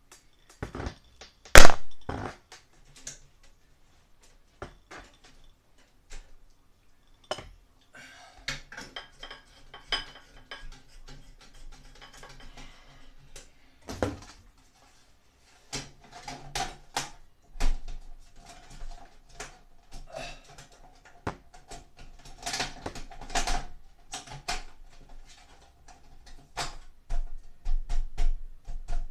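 Scattered clicks, taps and knocks of hard parts being handled as a light bulb is fitted into a Broan 655 bathroom heater and exhaust fan fixture and its lens cover is snapped into the grille, with a sharp loud knock about 1.5 seconds in.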